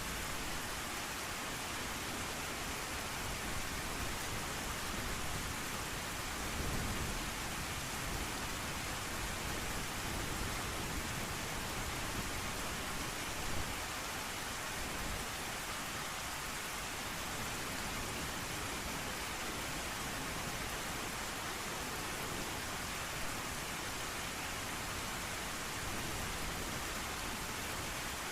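Steady heavy rain, an even hiss, with a low rumble of thunder swelling briefly about seven seconds in.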